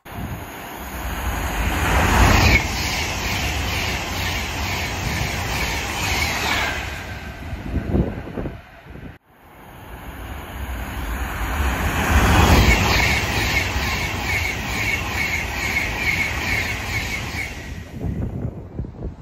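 Trains running through a station: two passes, each swelling into a loud rush of wheel and rail noise with a fast, even clatter. The first pass cuts off suddenly about nine seconds in.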